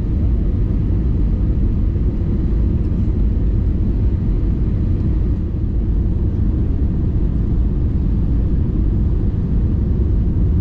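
Steady low rumble of cabin noise inside an Airbus A321ceo airliner: engine and airflow noise heard from a passenger seat, even throughout with no changes.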